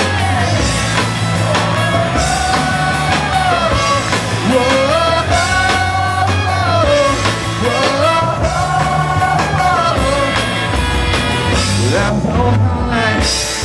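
A live Christian rock praise band playing, with a gliding melody line arching over steady bass and drums.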